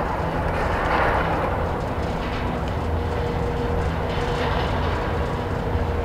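Disney Skyliner gondola lift running: a steady mechanical rumble and hum from the haul cable and the gondolas passing the tower, swelling briefly about a second in.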